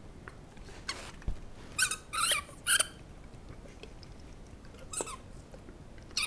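Squeaky dog toy squeaking in short high-pitched squeaks as a Great Dane bites on it: a quick run of squeaks in the first three seconds, then two single squeaks later on.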